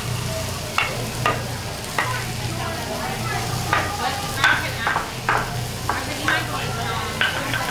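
Chicken sizzling on a teppanyaki griddle, with sharp metal clinks and taps at irregular intervals as a metal seasoning shaker and utensils knock on the steel cooking surface.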